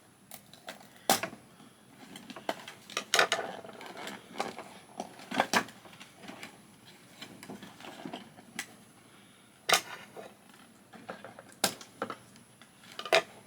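Plastic doll packaging being handled and opened: scattered sharp clicks and clacks with short rustles. About six louder snaps come at irregular intervals, with smaller ticks between them.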